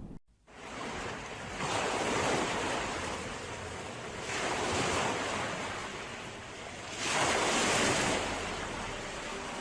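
Ocean surf with waves breaking in three swells about two and a half seconds apart, and wind buffeting the microphone.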